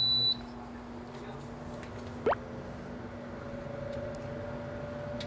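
A short, high electronic beep from a household appliance, followed by a steady hum of the appliance running. A brief rising chirp sounds about two seconds in, and a second, higher steady tone joins about a second later.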